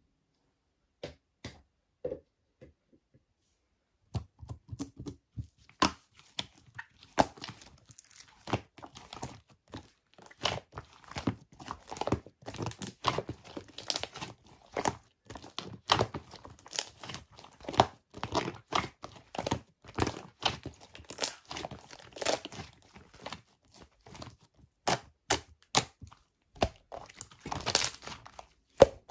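Close-up crinkling and tearing of paper or plastic, in dense, irregular sharp crackles with an occasional thunk. There are a few scattered clicks at first, and the handling becomes continuous about four seconds in.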